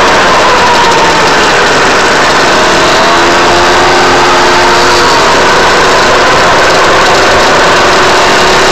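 Go-Ped GSR25 scooter's small two-stroke engine running loud under way, with a new exhaust pipe fitted. Its pitch sags over the first couple of seconds, rises again about three seconds in, and climbs near the end, over a steady rushing noise.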